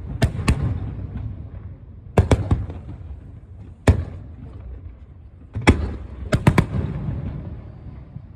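Aerial fireworks shells bursting: sharp bangs, some in quick pairs and clusters, each trailing off in a long echoing rumble.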